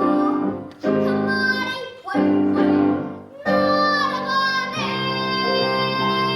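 A young girl singing a Korean traditional-style children's song with piano accompaniment: short phrases split by quick breaths, then a long held note near the end.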